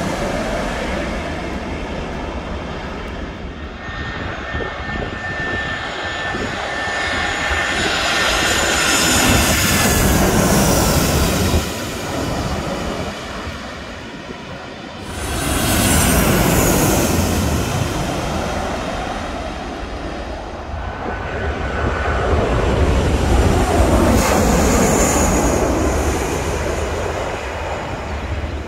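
Jet airliners (Boeing 737s and an Airbus A320) on final approach pass low overhead one after another, gear down. Their engine noise swells and fades in several waves, with a high whine that drops in pitch as the first plane goes by. There are abrupt jumps in level about a third of the way and halfway through.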